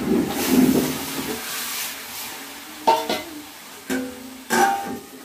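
Tadka of hot oil and spices hitting a kadhai of masoor dal and sizzling loudly for about the first second, then dying down. After that come three sharp ringing clinks of steel utensils.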